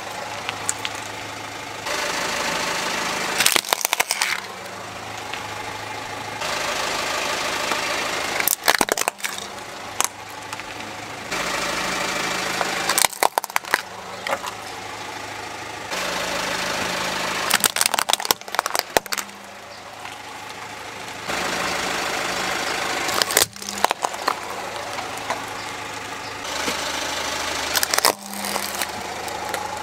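Car engine idling while its tyre rolls over small plastic toys, crushing them with sharp cracks and crunches, about six times. The engine hum cuts in and out abruptly between takes.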